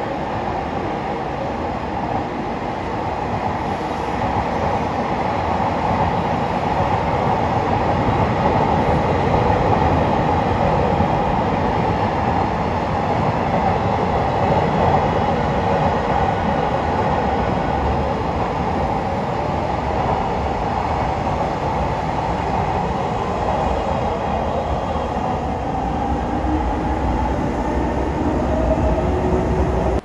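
Electric-hauled freight train running past, its wagons' wheels on the rails making a continuous, steady rumble, with a faint thin squeal rising near the end.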